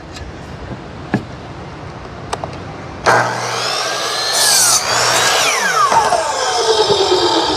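Electric power saw starting up about three seconds in and cutting through pressure-treated lumber, its motor whine falling in pitch as the blade winds down near the end.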